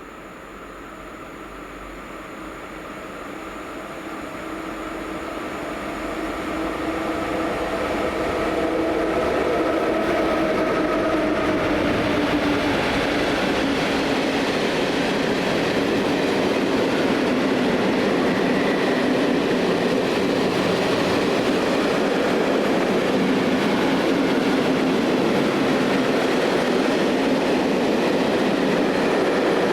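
Freight train passing. It grows louder over the first ten seconds as the locomotive draws near, then settles into a steady rolling rumble of wagons on the rails.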